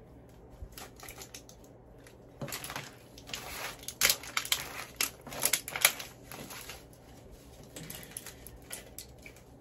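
Plastic candy wrappers crinkling and crackling as they are handled and opened, a dense run of sharp crackles loudest from about two and a half to six seconds in, with scattered lighter crinkles around it.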